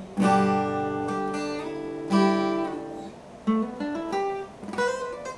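Acoustic guitar playing the closing bars of a song: chords struck a few times and left to ring, with single plucked notes between them.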